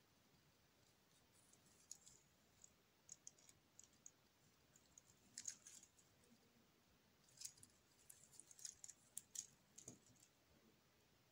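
Faint, scattered clicking and clinking of the Omega Equinoxe's metal link bracelet as its links are flexed and its folding clasp is opened and handled, in small clusters of light clicks.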